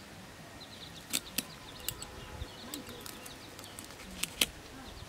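Small fish being scaled and cut on a boti, a curved blade fixed upright on a footboard. Several sharp scraping clicks, the loudest a little over four seconds in, with faint bird chirps behind.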